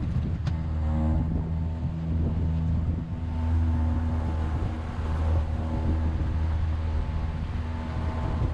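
Outboard motor of a 5-metre aluminium Quintrex boat running steadily at trolling speed, about 6 knots, with wind and water noise over the hull.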